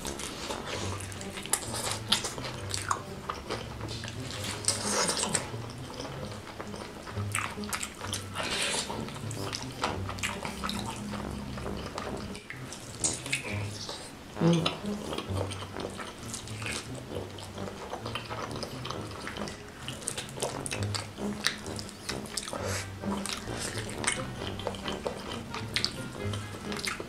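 Close-miked wet chewing and biting of sauce-coated spicy fried chicken, a steady run of small sticky, smacking clicks, over background music with a repeating low bass line.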